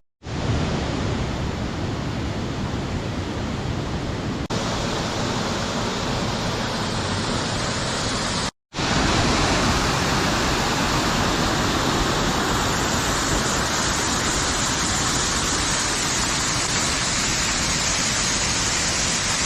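Steady rushing of Mackenzie Falls' water pouring over the cliffs. It is broken by an instant of silence about eight and a half seconds in.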